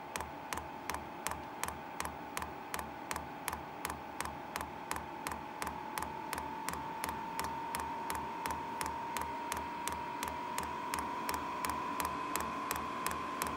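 Fuel dosing pump of a diesel air heater ticking steadily, roughly three clicks a second, over the whine of the heater's blower fan, which rises slowly in pitch. The pump is drawing diesel into an unprimed fuel line during start-up.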